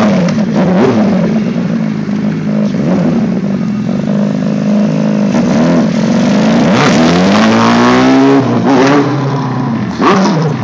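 Suzuki motorcycle engine revving hard and repeatedly, its pitch swinging up and down as the throttle is worked, with a long climbing rev about two-thirds of the way in.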